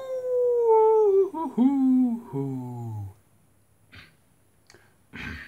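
Wolf-style howling: one long howl that rises to a held note and sags, then shorter howls sliding down to a low pitch, ending about three seconds in. A couple of short soft noises follow near the end.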